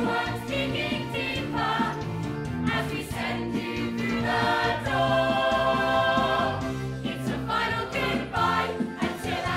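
A stage-musical cast singing together as a chorus over band accompaniment, holding one long chord about five seconds in.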